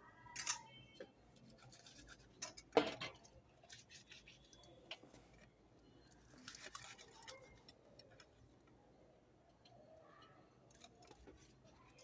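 Faint clinks and scrapes of a steel spoon in a small steel bowl of ghee as litti balls are dipped and turned, with a short ringing clink about half a second in and the loudest knock about three seconds in.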